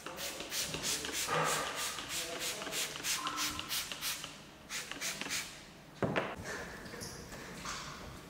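Claying a car's lubricated paint: quick back-and-forth rubbing strokes, about three or four a second, for about five seconds. A single knock follows about six seconds in.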